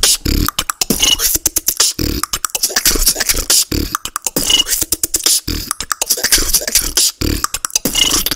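A solo human beatboxer performing a routine. Deep kick-drum sounds land about every second and three quarters, with fast mouth clicks, hi-hat hisses and snares in between, and three short high tones.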